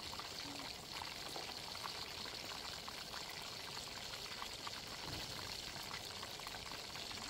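Steady rush of flowing river water, with faint scattered ticks over it.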